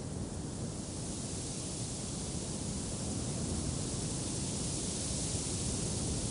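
Wind blowing, a steady rushing that swells gradually louder.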